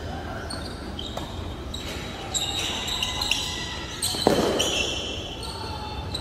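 Tennis rally on an indoor hard court: a ball struck by rackets and bouncing, with short squeaks of sneakers on the floor. The loudest hit comes about four seconds in and echoes through the large hall.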